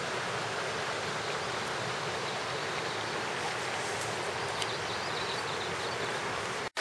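Mountain stream rushing steadily, an even wash of water noise, with a few faint high chirps about halfway through.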